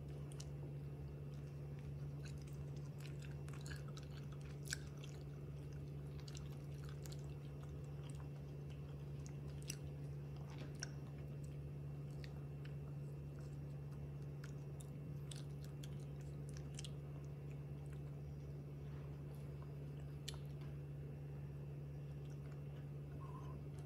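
Baby macaque chewing and biting on food, a scatter of small wet clicks and crunches, over a steady low hum.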